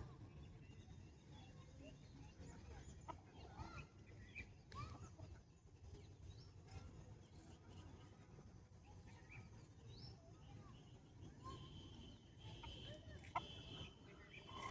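Chickens clucking faintly now and then, in short scattered calls over a low steady rumble.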